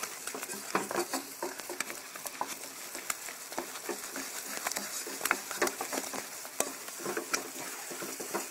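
Wooden spoon stirring and beating thick pâte à choux dough in a pan over high heat, with many irregular clicks and scrapes of the spoon against the pan over a light sizzle. The dough is drying out and starting to pull away from the sides of the pan.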